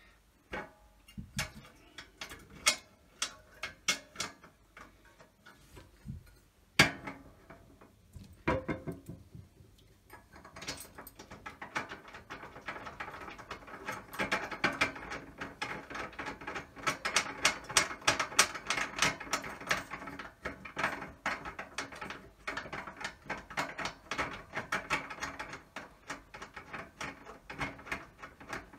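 Small metal fittings being worked by hand on a steel channel frame. First come a few separate clicks and knocks, one louder knock about seven seconds in, then from about ten seconds in a long run of rapid ratchet-like clicking as a stop block is fixed in place.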